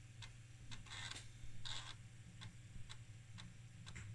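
Apple IIc's built-in 5.25-inch floppy drive reading a game disk: the drive head steps with short clicks about twice a second, with a couple of longer buzzing seeks about a second in. A steady low hum runs underneath.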